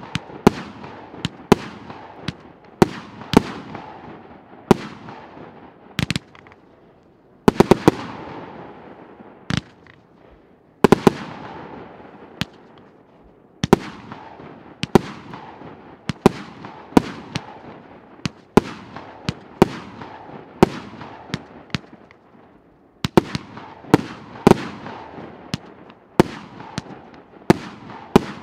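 A 49-shot, 1.2-inch consumer firework cake firing shot after shot: sharp bangs about one or two a second, some in quick runs of three or four, each trailing off in a fading hiss of bursting stars.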